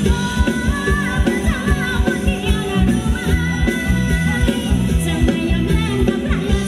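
Thai ramwong dance band playing live: a steady drum beat and a bass line under a singing voice.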